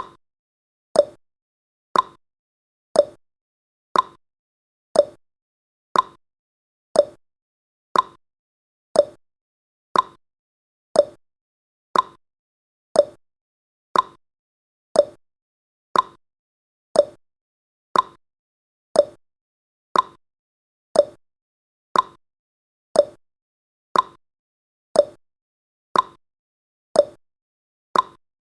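Clock tick-tock sound effect: one short click every second, alternating between a lower 'tock' and a higher 'tick', marking off the countdown seconds.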